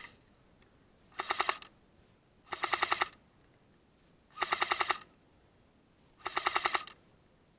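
Airsoft M60 electric support gun firing four short full-auto bursts, each about half a second of rapid clattering shots, spaced roughly two seconds apart.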